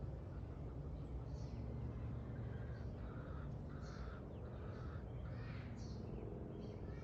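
A bird calling repeatedly, about six short harsh calls spaced roughly a second apart, over a steady low background rumble.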